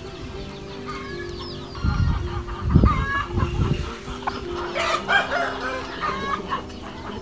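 Free-ranging brown hens clucking and calling, with high chirping calls mixed in. A few low rumbling bumps come between about two and four seconds in.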